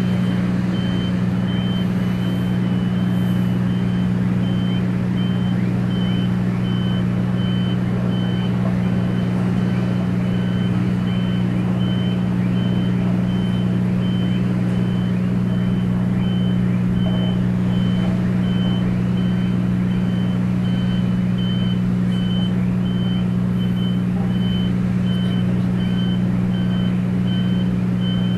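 Heavy dockside machinery running with a steady low drone, under an electronic warning beeper that beeps evenly and repeatedly in a high tone. A second, lower-pitched beeper joins about six seconds in, in the same rhythm.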